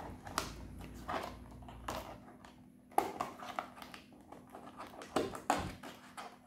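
Scattered light clicks and rustles as a Zebronics Lark Bluetooth neckband and its cable are worked loose from the moulded plastic tray of its box. A sharper click comes about three seconds in and another near the end.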